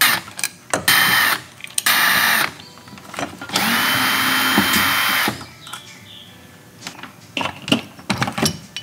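Porter-Cable cordless drill/driver backing out the screws of an RV door lock's mounting plate, in three runs, the last one about two seconds long with a steady motor whine. A few clicks near the end as the lock is worked loose.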